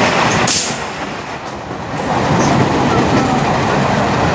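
Two trains passing close on adjacent tracks: the rumble and wheel clatter of a crowded suburban electric local train's coaches rushing past, heard through the open window of a moving train. A sudden blast of wind noise comes about half a second in.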